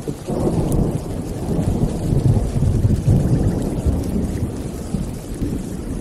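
Thunder rumbling over steady rain, swelling a moment in, strongest mid-way and easing off near the end.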